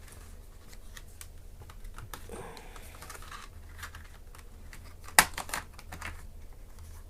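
Small plastic clicks and taps as a credit card is worked around a ThinkPad E450's plastic keyboard bezel to free its latches, with one sharp snap about five seconds in.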